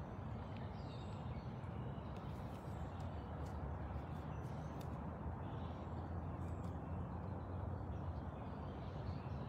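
Steady outdoor background noise with a low hum and no distinct sound event.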